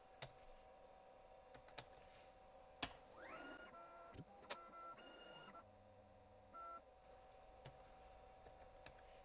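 Faint whine of a CNC router's stepper-driven axes moving the spindle during an automatic tool change, with a few light clicks early on. About three seconds in, a tone rises in pitch as an axis speeds up, then holds steady for a couple of seconds; a short burst of the same whine comes near the middle.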